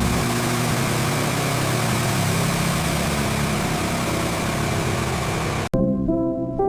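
A steady, engine-like mechanical rumble with a hiss over it, which cuts off suddenly about five and a half seconds in. Music with horn-like tones follows.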